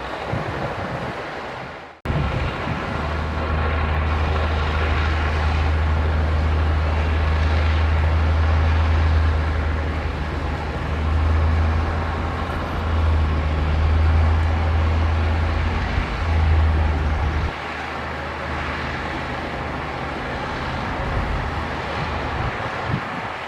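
Heavy diesel engine of earthmoving machinery working, a loud low drone that rises and falls in strength, then settles to a lower, steadier level about three-quarters of the way through. The sound fades briefly and cuts back in abruptly about two seconds in.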